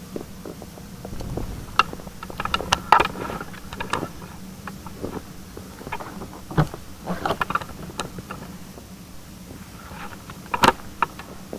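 Scattered knocks, clicks and rustles of someone walking on packed snow and opening the minivan's tailgate, the loudest a sharp knock near the end.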